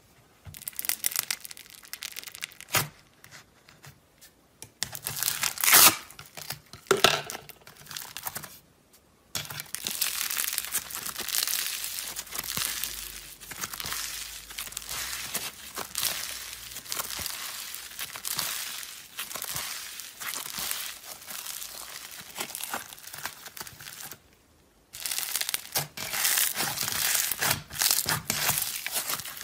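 Green slime packed with small foam beads being poked, stretched and pressed by hand: dense crackling and crinkling of the beads, in several stretches with a few short pauses.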